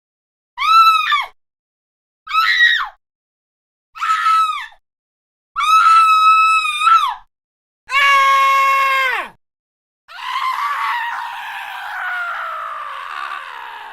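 A series of six separate high-pitched screams, each cut off into dead silence before the next; the first five are short, about a second or less, and the last is long and slowly falls in pitch.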